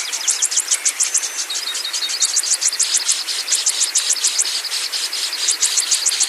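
Insects chirping in rapid trains of sharp, high chirps, several a second in runs about a second long, over a faint steady high tone and an even hiss.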